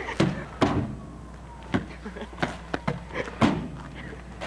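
A basketball striking a garage-mounted backboard, rim and roof edge: a string of irregular sharp knocks and thuds from missed shots.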